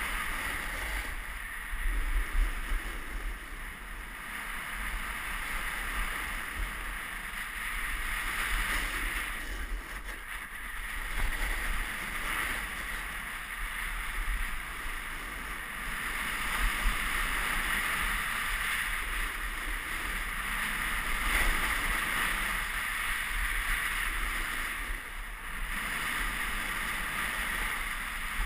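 Snowboard sliding and carving over packed, groomed snow: a steady scraping hiss that swells and eases, with wind rumbling on the GoPro's microphone.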